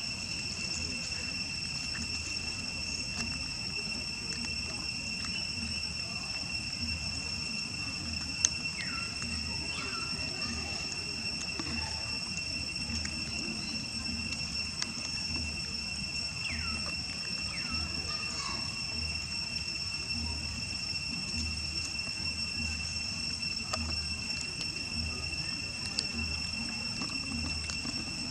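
Insects droning without a break as a steady high-pitched whine. A few faint falling chirps come about ten seconds in and again near the middle, and there is one sharp click about eight seconds in.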